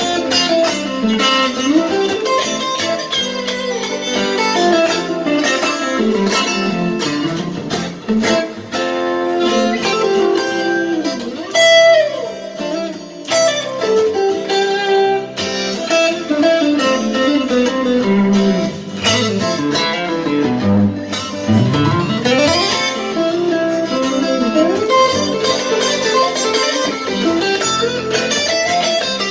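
Guitar played through a compressed acoustic-guitar sound, a calm melodic passage of plucked and tapped notes with several sliding notes in the middle of the passage. The compression keeps the notes loud and even.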